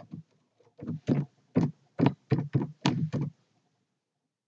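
Typing on a computer keyboard: about a dozen keystrokes in a quick, irregular run that stops a little past the three-second mark.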